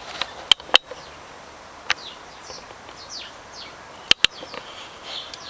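Birds chirping in short falling notes in the background, broken by a few sharp clicks or knocks: a pair about half a second in, a single one near two seconds, and another close pair about four seconds in.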